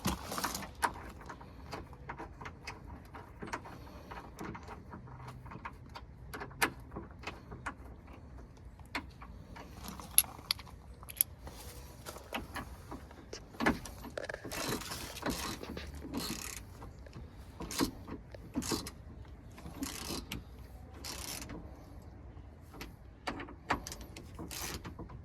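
A wrench clicking and clinking against metal as the bolts of a door latch are tightened inside a car door, with irregular sharp clicks and several short rasping bursts.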